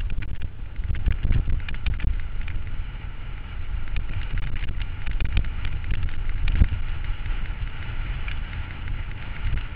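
Mountain bike riding over a rocky, leaf-covered dirt trail, with frequent sharp clicks and knocks from stones and the rattling bike under a steady rumble of wind on the camera microphone.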